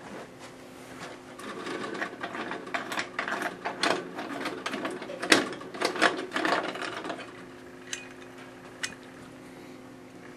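Metal clicking, scraping and rattling from handling a Master penny gumball machine for about six seconds, then two single clicks near the end.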